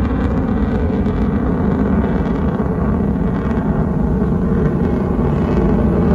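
Steady, loud noise from a military jet flying overhead, strongest in the low range.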